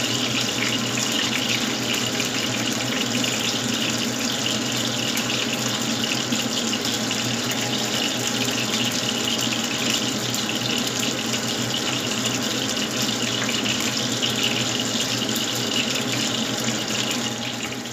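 Fish deep-frying in hot oil: a steady sizzle with fine crackling throughout.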